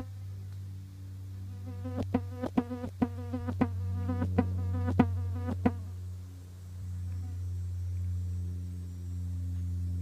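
A flying insect buzzing, a low steady drone that dips briefly and swells again. A quick run of about a dozen sharp clicks comes from about two to nearly six seconds in.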